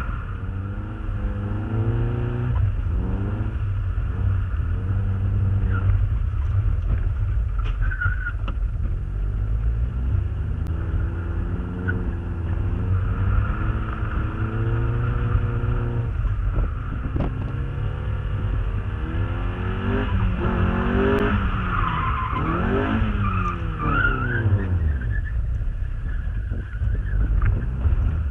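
Mazda MX-5 Miata's four-cylinder engine revving up and down again and again as the car is drifted, with tyres squealing, most strongly about two-thirds of the way through.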